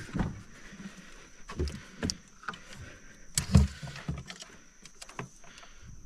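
Irregular handling noise of bumps, knocks and rustles, the loudest thump a little past halfway, over a faint steady high tone.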